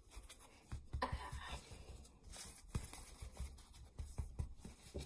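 Close handling noise as a hand moves small plush toys about on a hard surface near the microphone: irregular soft knocks, bumps and rubbing.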